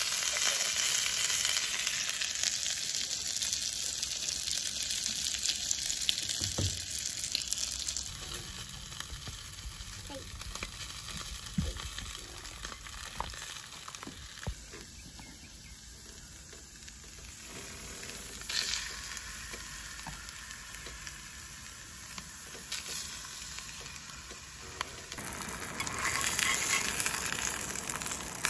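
Oil sizzling in a cast-iron skillet as sausages fry on a camp stove. The sizzle drops lower through the middle and rises again near the end as cornmeal-breaded fish fillets go into the hot oil.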